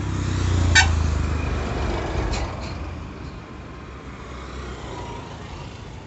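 A road vehicle passing close by: a low rumble that swells to a peak about a second in, with a sharp click at the peak and two fainter clicks soon after, then fades away.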